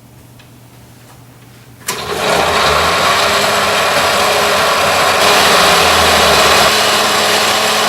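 Electric blender starting about two seconds in and running steadily at full speed, puréeing onions, garlic and ginger with corn oil and water into a smooth paste.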